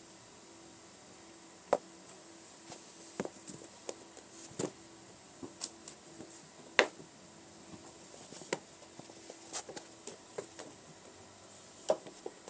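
Kittens playing close by: irregular sharp taps and knocks at uneven intervals, a few of them loud, over a faint steady hum.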